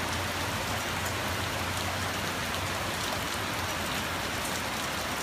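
Steady heavy rain falling and drumming on nearby surfaces during a thunderstorm, an even hiss at constant level.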